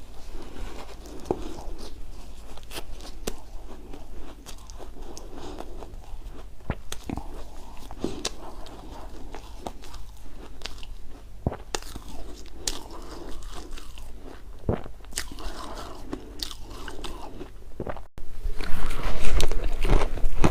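Close-miked biting and chewing of shaved ice: irregular crisp crunches throughout, much louder after a short break near the end.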